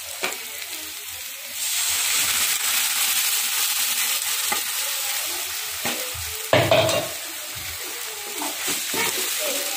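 Tomato puree, freshly ground in a mixer, hitting hot oil and fried onion and garlic in an iron kadai: the sizzle jumps up about a second and a half in and keeps going while a slotted metal spatula scrapes and stirs against the pan. A loud metal knock on the pan comes about two-thirds of the way through.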